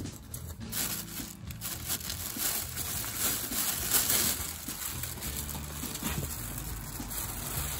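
Plastic shopping bag crinkling and rustling continuously as gloved hands handle it and lower it into a clear plastic box.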